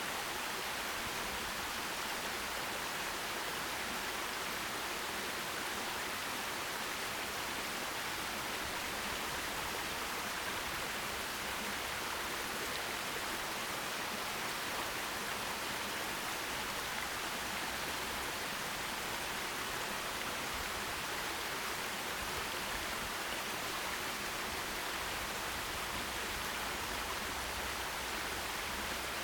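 Forest stream water rushing over rocks, a steady, even hiss with no change.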